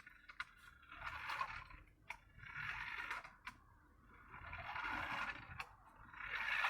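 Large remote control car driving in three short bursts, its electric motor and tyres giving a scraping hiss, with a few sharp clicks in between.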